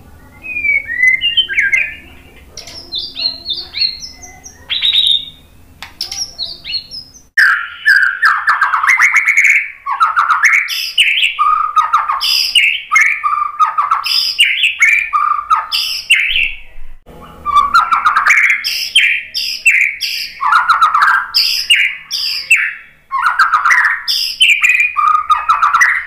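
White-rumped shama singing a varied song of short whistled notes, many of them quick downward sweeps. The song is softer and broken at first, then loud and nearly continuous from about seven seconds in.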